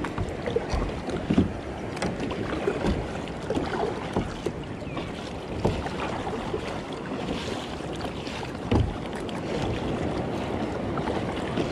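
Kayak paddle strokes splashing in choppy sea water, with water lapping at the hull and wind on the microphone; a few sharper splashes stand out, one a little over a second in and one about nine seconds in.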